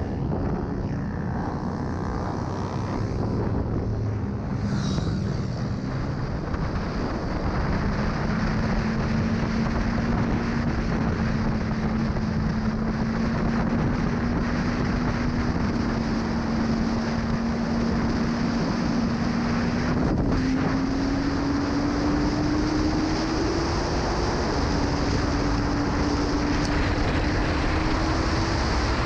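Honda CB1000R's inline-four engine running at speed under a steady rush of wind, its note climbing over the first several seconds, holding, then rising again from about twenty seconds in.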